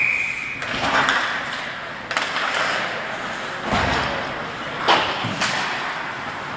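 Ice hockey play in an indoor rink: skates scraping and carving across the ice, with sharp clacks of sticks and puck and several thuds against the boards. A brief high steady tone, like a short whistle, sounds at the very start, just before play resumes.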